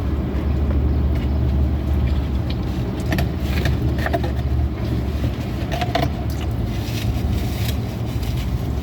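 Steady low rumble of a parked car's engine idling, with a few faint, short clicks.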